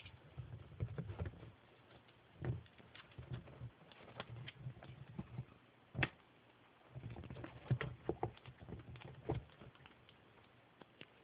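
Ferret at play with a toy: its paws and the toy make irregular taps, knocks and pattering scuffles on the floor, with soft thumps.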